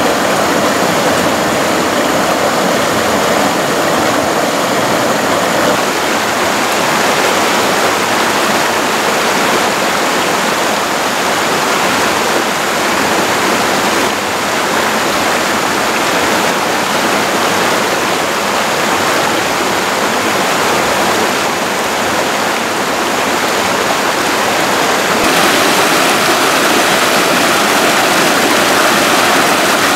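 A rocky mountain stream rushing and splashing over stones in small cascades, a loud steady rush of water whose tone shifts abruptly a few times.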